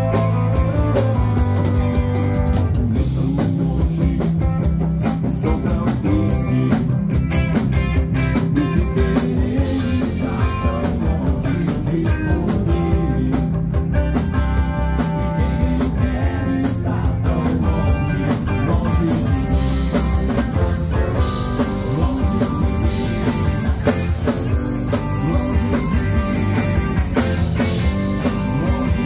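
Live rock band playing a cover: distorted electric guitars, electric bass and a drum kit, with a woman singing lead.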